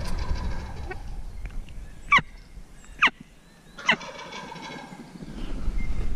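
Three short, sharp turkey calls about a second apart, with low rustling before and after.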